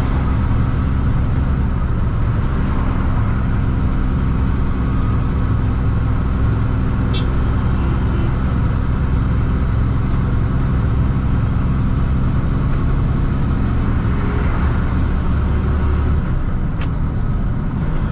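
Truck engine running steadily at cruising speed, with road noise, heard from inside the cab. The low engine drone eases off slightly near the end.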